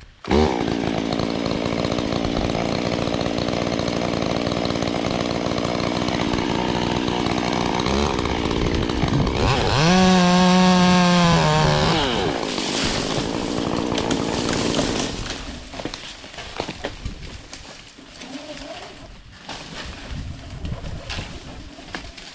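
Chainsaw running at full throttle in a steady cut. About ten seconds in, its pitch climbs sharply and holds for a couple of seconds, then drops back. At about fifteen seconds it cuts back and the sound falls away to quieter scattered knocks.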